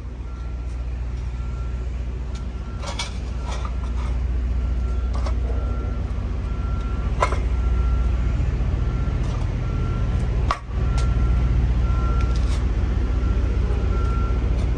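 A heavy truck idles with a steady low rumble. A few metal clanks come from the wheel-chock lock being set against the trailer tyre. A faint high beep repeats in short pulses in the background.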